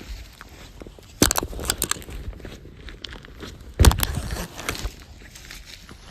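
Boot sole stomping on a small toy car on asphalt: two heavy thuds, about a second in and again near the middle, with crunching, crackling and gritty scraping of plastic and grit under the sole between them.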